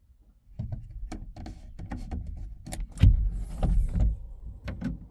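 A run of irregular clicks and clunks over a low rumble, starting about half a second in, with heavier thuds about three and four seconds in.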